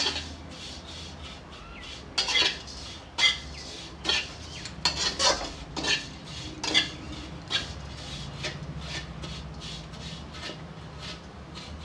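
A metal spatula scrapes and scoops vermicelli around a metal kadhai in short, irregular strokes, about one every half second to second. The vermicelli is being roasted in a little ghee until it turns dark brown.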